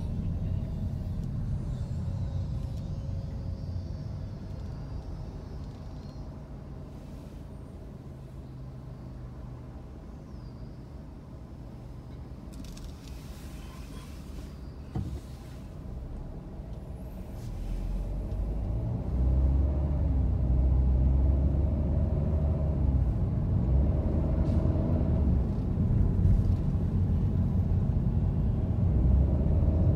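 Car driving: a low rumble of engine and road noise. It eases off for several seconds mid-way, then grows louder from about eighteen seconds in as the car gets moving again. There is a single click about fifteen seconds in.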